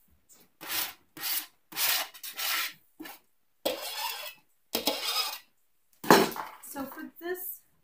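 Shredded cabbage and carrots rustling and scraping as they are handled for mixing, in a series of about eight short rasping strokes with brief gaps between them.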